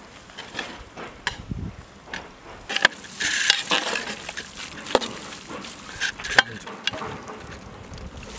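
A ladle stirring in a large steel cooking pot of simmering tomato and cashew gravy, with irregular clinks and scrapes against the pot.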